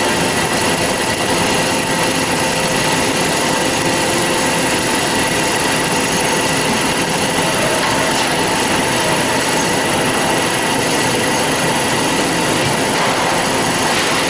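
Industrial band saw running steadily with its coolant water switched on: a loud, even machine noise with several steady whining tones over it.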